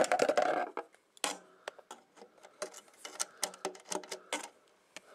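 Irregular clicks and scrapes of a small screwdriver working among the wires in a radio's metal chassis: a dense cluster at the start, then scattered clicks that stop about four and a half seconds in.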